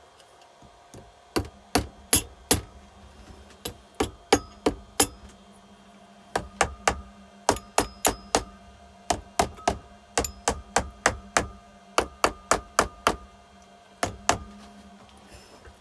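Series of sharp metallic knocks in short runs, about three a second, from tapping on the engine parts during reassembly.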